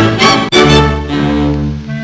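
Orchestral cartoon title music: a busy passage, then from about half a second in, low notes held as a sustained chord.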